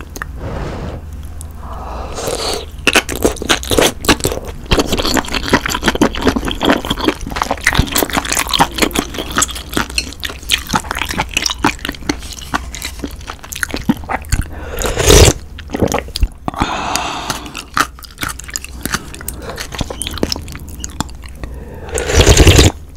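Close-miked eating of spicy budae-jjigae: wet, crunchy chewing of noodles and mushrooms with clicking mouth sounds throughout. There are two short loud bursts, one about fifteen seconds in and one near the end, and the last is a slurp of broth from a ladle.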